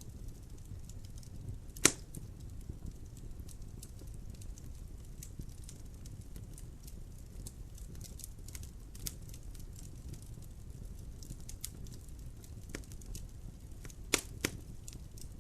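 Fire burning in a fireplace, crackling steadily with scattered small snaps and a few loud sharp pops: one about two seconds in and two close together near the end.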